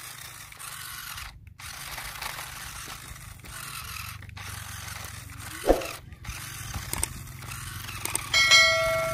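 Toy RC rock crawler's small electric motor and plastic gearbox whirring and grinding as its wheels spin and dig in loose sand. A short rising squeak comes about halfway through, and a ringing electronic chime near the end.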